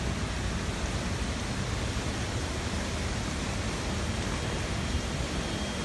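Heavy rain falling, a constant even rushing hiss with no let-up.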